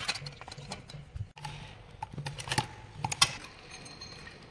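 Irregular metallic clicks and clinks of spanners and a small electric motor's casing being handled as the rotor is fitted back into the stator, with two louder knocks about two and a half and three seconds in.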